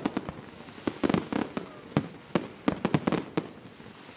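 Fireworks display going off: bursts of sharp bangs, several in quick succession about a second in and a longer run from about two to three and a half seconds.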